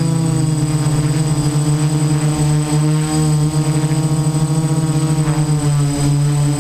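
The six brushless motors and 10-inch propellers of a DJI Naza-M Y6 multirotor hovering, heard from the camera on the airframe: a loud, steady propeller hum with a thin high whine, its pitch wavering slightly as the motors adjust.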